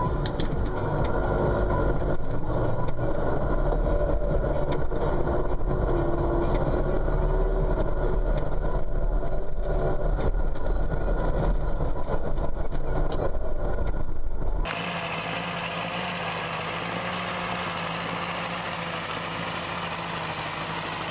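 Tractor engine running steadily, heard from inside the cab, heavy in the bass. About two-thirds of the way through it cuts abruptly to a vintage tractor's engine running, thinner and quieter, heard from outside.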